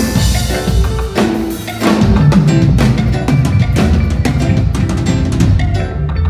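A band playing an instrumental passage, led by drum kit and bass, with percussion and other instruments and no vocals.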